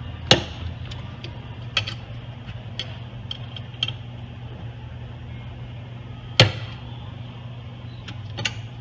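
Sharp metal clicks and knocks as a hex key works the set screws on a Rolladeck windshield-setting bracket, loosening them. Two loud clacks, one just after the start and one about six seconds in, with several lighter ticks between and near the end.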